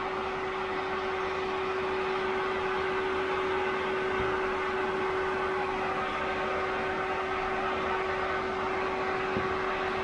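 Cooling fan of a Peltier-cooled water loop running steadily, pushing air through the radiator: an even rush of air with a constant hum-like tone and fainter higher tones on top.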